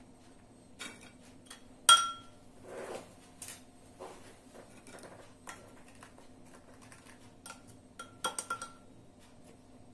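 A metal spoon clinking against a ceramic bowl as ladyfinger biscuits are dipped in strawberry syrup: one sharp ringing clink about two seconds in and a few quick ones near the end, with soft handling sounds between.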